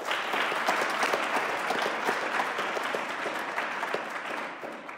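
A group of people applauding. The clapping breaks out suddenly and dies away near the end.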